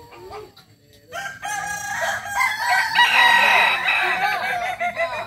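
Several kukuak balenggek roosters crowing at once, their long, multi-note crows overlapping. It is quieter for about the first second, then builds into a dense chorus that is loudest past the middle.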